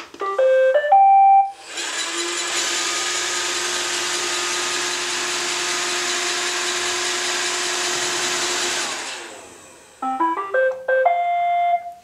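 An iRobot Roomba 760 robot vacuum plays a short rising electronic tune as it is sent to its dock. It then runs its motors with a steady noise for about seven seconds as it drives to the charging base, the noise fading out. About ten seconds in it plays another rising tune, the signal that it has parked on the base and is charging.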